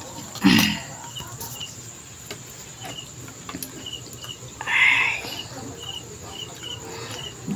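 Insects chirping in short, evenly repeated high chirps, often in pairs, with a brief louder noise about five seconds in.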